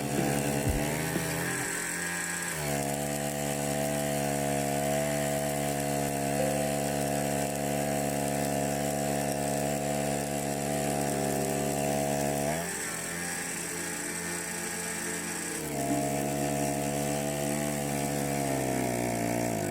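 Small engine running, its speed rising about two and a half seconds in, dropping back about twelve seconds in and picking up again about sixteen seconds in.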